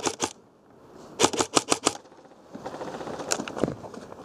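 Custom M4 airsoft electric gun (AEG) firing on full auto: a rapid burst that stops just after the start, then another short burst of about seven shots about a second in. After a short lull come rustling and a couple of single clicks.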